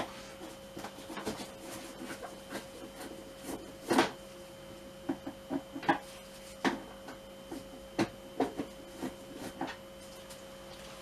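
Scattered light clicks and knocks of a Phillips screwdriver and hand tools against the scooter's plastic body panels and screws, with a sharper knock about four seconds in and a run of clicks after it, over a faint steady hum.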